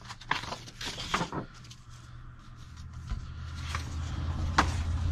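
Sheets of paper being handled and stacked: several soft rustles and light taps, with one sharp tap near the end. A low steady hum comes up in the second half.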